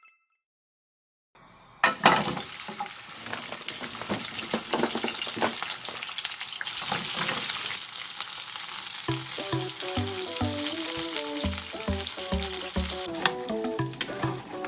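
Food sizzling as it fries in a pan, starting about two seconds in and going on steadily. Background music comes in about halfway through.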